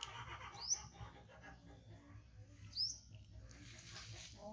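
A small bird chirping twice, about two seconds apart: short high chirps that sweep sharply upward.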